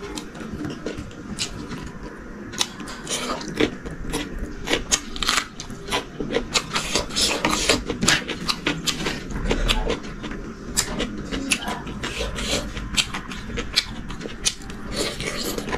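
Close-miked eating sounds: chewing and wet lip smacks of a person eating chicken curry and rice by hand, with fingers scraping food across the tray. Many short, sharp clicks follow one another irregularly throughout.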